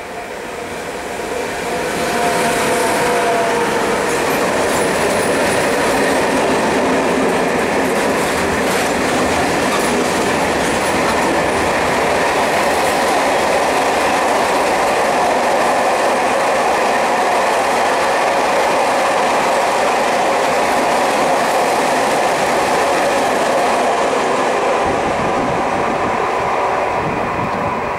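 Renfe class 253 (Bombardier Traxx) electric locomotive passing close by with a steady whine, followed by a long freight train of wagons rolling past, the wheels clattering over the rails. The noise builds over the first two seconds, holds steady while the wagons go by, and eases near the end as the last wagons pass.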